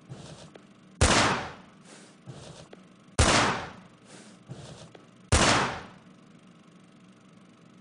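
Three gunshot sound effects about two seconds apart, each loud and sudden and dying away with a fainter echo.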